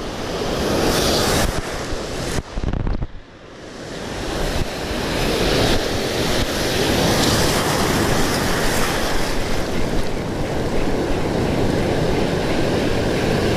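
Ocean surf breaking and washing in the shallows, with wind buffeting the microphone. The noise drops briefly about three seconds in, then swells back and holds steady.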